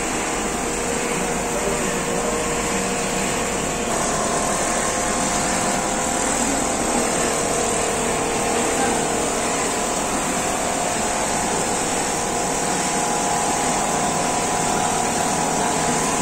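Richpeace single-needle computerized quilting machine running as it stitches, a steady mechanical hum with a thin pitched whine that grows a little stronger about four seconds in.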